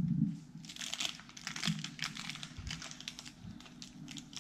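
Small plastic blind-bag packet crinkling and crackling as a child's fingers pull and twist at it, trying to tear it open by hand; a packet she calls really hard to open.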